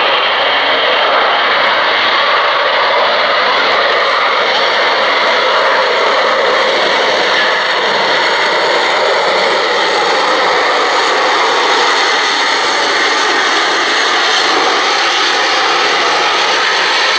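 Lockheed Martin F-35B hovering on its Pratt & Whitney F135 jet engine and shaft-driven lift fan: a loud, steady jet roar with faint tones that wander slowly in pitch.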